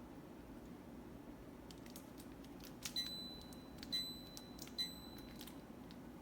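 Humidifier control panel beeping three times about a second apart, each short high beep set off by a button press, over a low steady hum.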